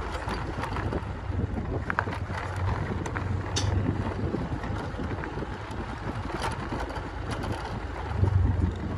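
Wind rumbling and buffeting on the microphone in open country, swelling in gusts, with a few faint ticks.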